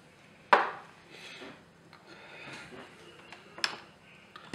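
Small objects handled on a tabletop: a sharp knock about half a second in as something is set down, soft rustling and shuffling, and another sharp click near the end.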